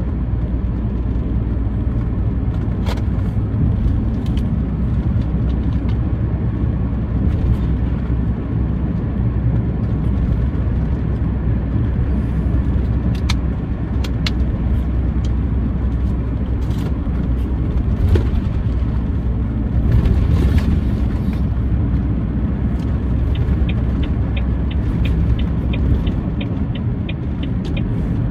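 Steady low engine and road rumble heard from inside a truck cab cruising along a dual carriageway. Near the end comes a run of light, evenly spaced ticks, about three a second.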